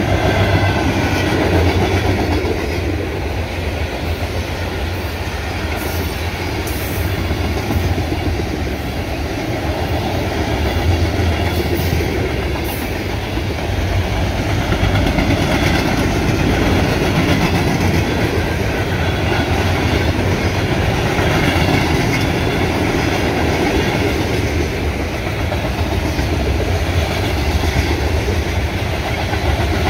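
Freight cars of a long mixed freight train, mostly tank cars and autoracks, rolling past at speed: a steady, loud rumble and clatter of steel wheels on the rails.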